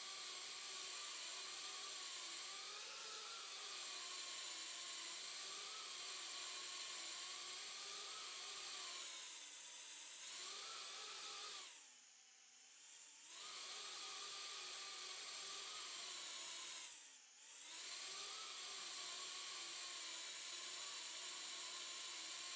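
Tiny whoop micro-drone's small motors and propellers whining, the pitch wavering up and down with throttle. The whine nearly cuts out for about a second and a half around twelve seconds in, and dips again briefly near seventeen seconds, as the throttle is cut for a drop.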